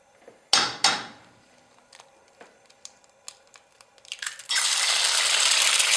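Frying-egg sound effect: two sharp cracks about half a second in, a few faint pops, then loud steady sizzling of an egg in a hot pan from about four and a half seconds in.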